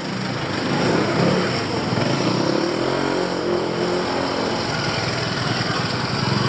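Street traffic with small motorcycle engines running and passing, over a steady traffic hum.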